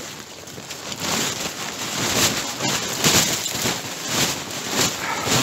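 Steady rain pattering, a dense spread of drops falling on the camp.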